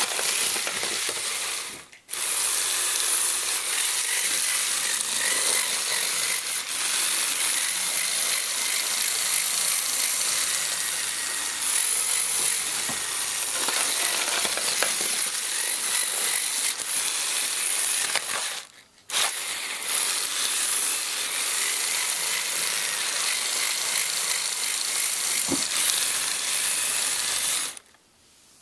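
LEGO Technic tracked tank driven by two Power Functions XL motors: a steady whirring rattle of motors, plastic gears and tracks. It stops briefly about two seconds in and again about two thirds of the way through, then cuts off near the end.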